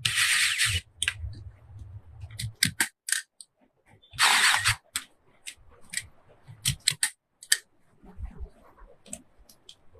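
Clicks and taps of hardware and tools being handled during a cabinet lock fitting, with two short, harsh rasping bursts about four seconds apart.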